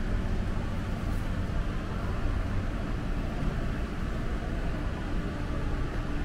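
Steady background din inside a large supermarket, with a faint murmur of distant voices.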